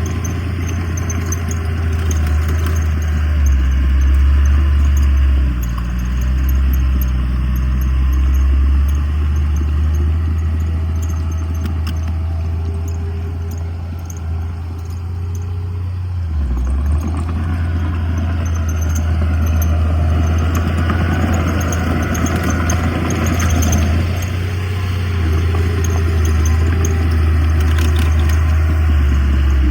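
Heavy diesel earthmoving machinery running steadily, with metallic clatter and scraping on top. The engine note dips briefly about halfway through, then picks up again.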